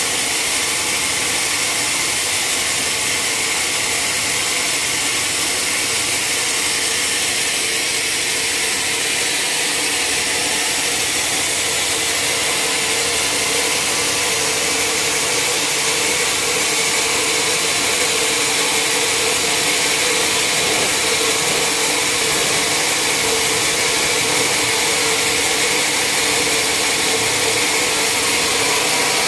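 Sawmill saw running steadily through a large mahogany log: a continuous loud hiss with a steady whine, unbroken throughout.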